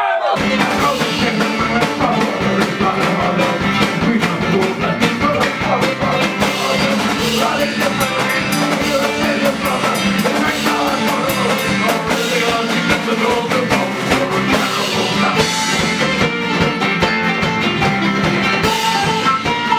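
Irish folk-punk band playing live, kicking in abruptly: drum kit, electric bass and acoustic guitar driving a fast song with a singer, and a flute played near the end.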